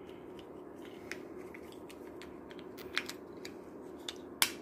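Plastic remote-key fob casing being pressed back together by hand: a few small sharp clicks and snaps of the plastic parts seating, the loudest near the end.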